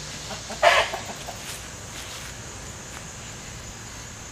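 A chicken squawks once, short and loud, a little under a second in.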